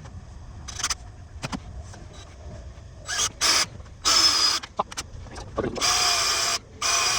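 Electric hand drill running in four short bursts, about three seconds in and onward, with a steady motor whine, drilling a hole into the milling machine's body to be tapped for a bolt. A few light knocks of handling come before it.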